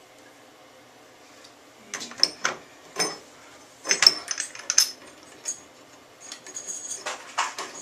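Metal tools and faucet valve parts clinking and knocking against each other in a series of short, sharp clicks, starting about two seconds in.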